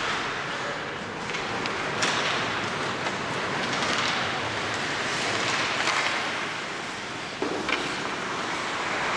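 Ice hockey play: skate blades scraping the ice in repeated swells, with a few sharp clacks of sticks and puck.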